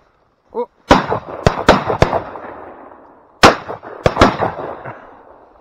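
Shotguns fired at a flushing pheasant: a rapid string of about seven sharp shots over three and a half seconds, the two loudest about two and a half seconds apart.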